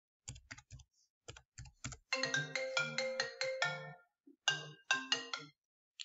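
A few quick computer keyboard keystrokes as a dimension value is typed in, then a short electronic ringtone melody of quick, evenly held notes in two phrases, the loudest sound here.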